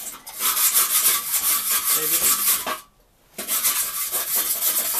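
Rapid back-and-forth scraping of a hand tool over a rusty metal part, scrubbing off rust, with a short pause about three seconds in.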